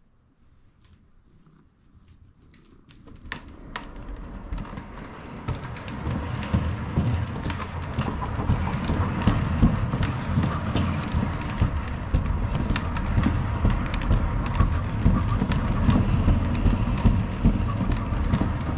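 Cat exercise wheel turning under a running cat: a rolling rumble with rattling clicks. It starts about three seconds in, grows louder over the next few seconds as the wheel picks up speed, then runs steadily.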